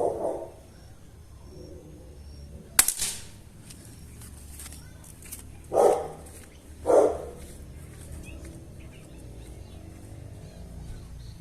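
A single sharp shot from a CBC 8122 .22 bolt-action rifle about three seconds in. A dog barks twice, around six and seven seconds in.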